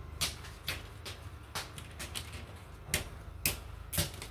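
Plastic snap clips of a Casper C600 laptop's screen bezel clicking loose as it is pried open around the edges: a string of sharp, irregular clicks, the loudest two near the end.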